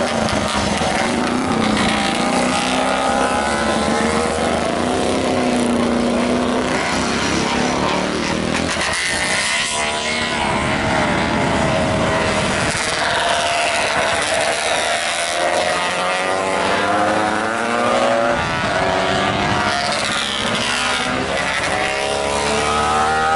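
Historic road-racing motorcycles passing one after another, several at once at times, their engine notes rising and falling as they accelerate through the bend.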